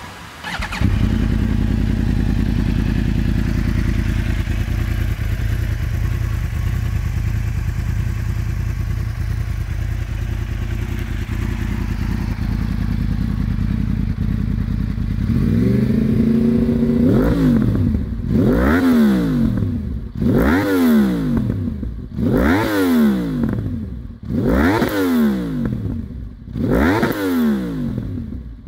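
2015 Yamaha YZF-R1's crossplane inline-four engine, breathing through an Akrapovic exhaust, starts up about a second in and idles steadily. From about fifteen seconds it is revved in a series of about six quick blips roughly two seconds apart, each rising sharply and falling back to idle.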